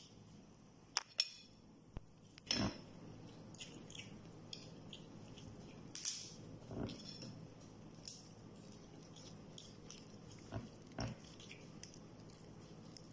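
A metal spoon scraping and clicking against a grilled crab shell as the meat is scooped out, with soft eating sounds. The sound comes as scattered short clicks and scrapes, the loudest about two and a half and six seconds in.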